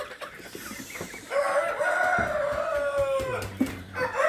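Desi rooster crowing: one long drawn-out crow starting about a second in, with a second crow beginning near the end.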